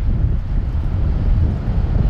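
Wind buffeting the microphone outdoors: a steady, gusty low rumble with no distinct events.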